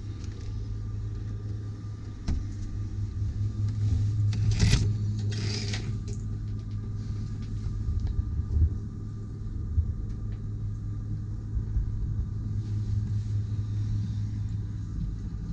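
Steady low hum of a motor yacht's onboard machinery, heard below deck. About five seconds in there are two brief scratchy noises.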